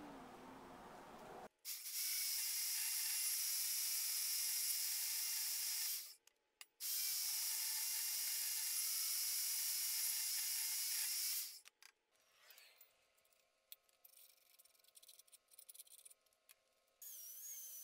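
Portable band saw cutting through a steel bracket in two runs, a steady high-pitched hiss with a faint whine, with a short stop about six seconds in. Then a hand file scrapes the cut steel in quieter, irregular strokes.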